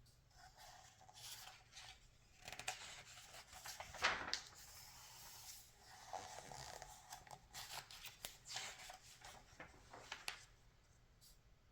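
Glossy magazine pages turning and rustling by hand: a run of soft, irregular paper swishes and crinkles, the loudest about four seconds in.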